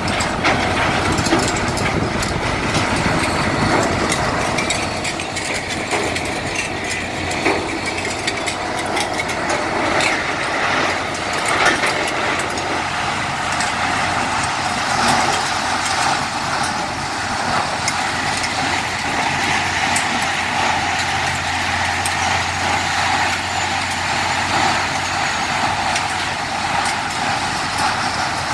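Ing. Bonfiglioli Drake 16 hammermill compact shredder plant running: a loud, steady machine drone with a continual clatter of sharp metallic knocks from scrap being shredded and conveyed. A steady hum sets in more strongly about halfway through.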